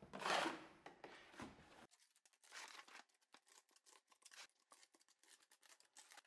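Trowel scraping and spreading wet cement patching compound (Ardex Feather Finish) into a gap along a brick hearth: a louder scrape in the first second, then a run of short, faint scrapes and taps.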